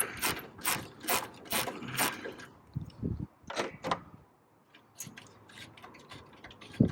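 Quick repeated clicking of a hand tool backing out the last screw of a truck's upper grille, about two to three clicks a second for the first two seconds, then only a few scattered clicks.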